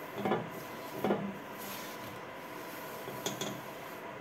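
A damp cloth wiping ash paste across the glass door of a wood-stove insert. There are a few soft rubbing strokes, the clearest about a quarter second and a second in, and small ticks a little past three seconds.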